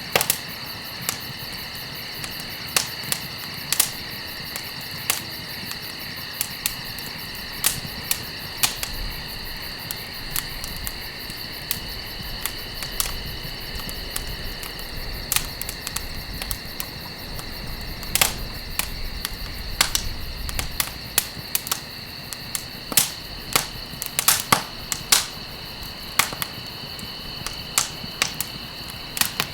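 Campfire crackling and popping: irregular sharp snaps from burning wood, some loud and some faint, with several coming close together in the second half. Underneath runs a steady high-pitched hum.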